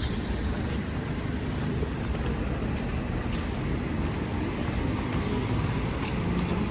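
Steady road and engine noise of a car being driven, a low, even rumble.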